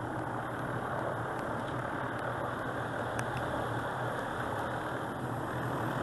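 A large engine running steadily at idle: a constant low hum under an even rushing noise.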